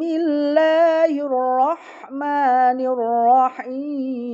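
A woman's voice chanting Qur'anic recitation in tartil style, drawn out in long, wavering melodic notes to the Bayyati melody.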